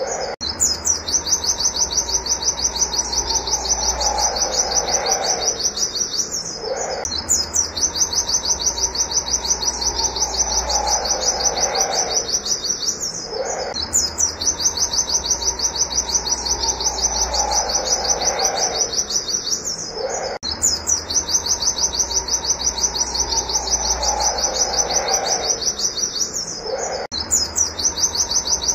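White-eye (pleci) singing its rapid-fire 'wit wit' shooting song: long runs of fast repeated high notes that break off about every six or seven seconds and start again. A fainter, lower, falling call sounds beneath them.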